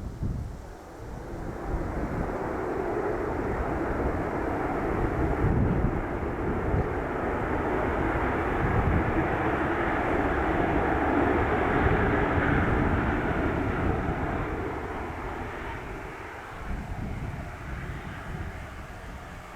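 Airliner passing by: engine noise that builds over the first few seconds, is loudest about twelve seconds in and then fades away. Gusts of wind rumble on the microphone underneath.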